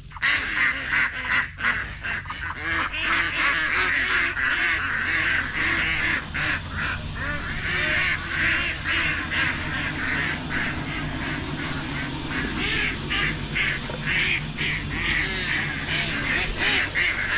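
A flock of domestic ducks quacking and chattering continuously at feeding time, as they are given duckweed.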